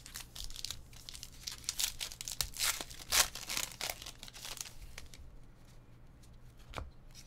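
Wrapper of a baseball trading-card pack being torn open and crinkled: irregular crackling rustles, thickest in the middle, with one sharp tick near the end.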